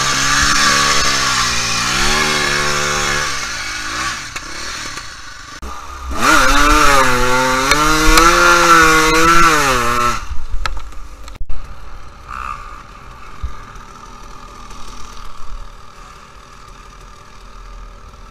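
Dirt bike engine revving up and down again and again while the bike is stuck in mud, louder and higher from about six seconds in. After about ten seconds the sound drops to a quieter mix of a distant engine and scattered knocks.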